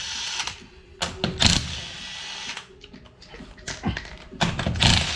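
Cordless impact wrench spinning off wheel lug nuts in two short bursts, about a second in and again near the end, with clicks from the socket and nuts in between.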